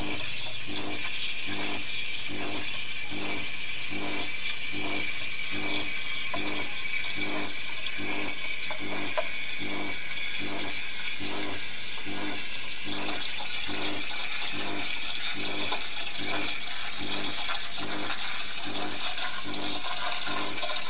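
Espresso machine steam wand hissing steadily in a jug of milk, its tip held just under the surface to draw air in and froth the milk for a cappuccino. Under the hiss runs an even pulsing, a little more than once a second.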